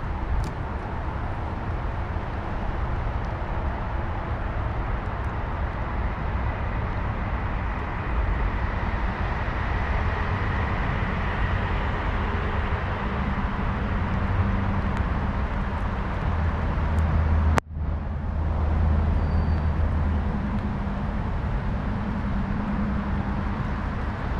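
Steady low rumble and noise of a vehicle on the move, with a low hum under it; the sound drops out for an instant about three-quarters of the way through.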